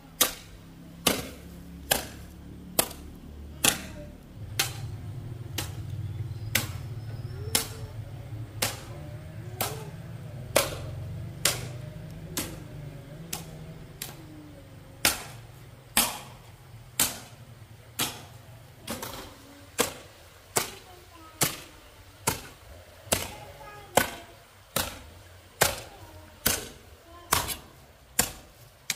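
A steady series of sharp knocks, about one a second, like repeated blows of a tool. A low rumble swells up about four seconds in and fades out by the middle.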